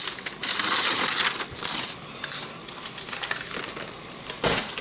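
Hardware kit being handled in its cardboard box: plastic packaging crinkling and rustling with the small metal bolts and fittings in a clear bag clinking, and a thump about four and a half seconds in.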